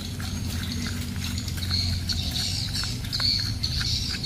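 A small screwdriver turns a screw in a plastic toy train's battery cover, giving faint scattered clicks. From about two seconds in, a high wavering chirping joins over a steady low hum.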